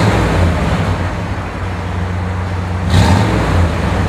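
1970 Ford Bronco's fresh 302 V8 running at idle through its dual exhaust, blipped briefly near the start and again about three seconds in.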